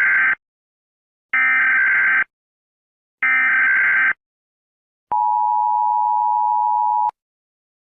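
Emergency Alert System tones: three SAME digital header bursts of about a second each, the first already under way, then the two-tone attention signal held for about two seconds and cut off abruptly.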